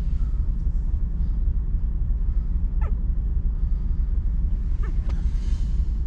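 A steady low rumble, with two faint short falling squeaks from nursing puppies about three and five seconds in, and a soft rustle near the end.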